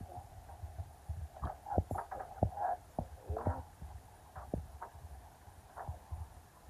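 Faint scattered taps, clicks and rubbing as fingers handle boiled taro roots and bananas on a banana leaf, with low fluttering handling noise under them.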